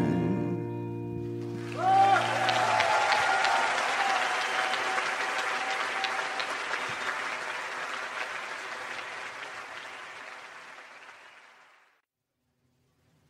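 The band's final chord rings out, then a concert audience breaks into applause and cheering about two seconds in. The applause fades out gradually to silence near the end.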